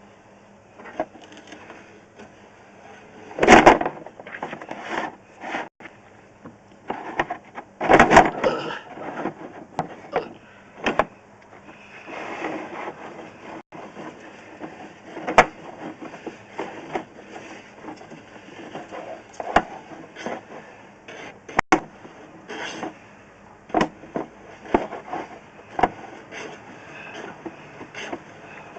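Irregular knocks, clatters and scrapes of drain-survey equipment being handled, loudest about 3.5 and 8 seconds in.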